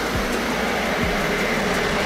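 Deutsche Bahn ICE high-speed electric train running past: a steady rushing noise of wheels on rails and air, with a faint high whine.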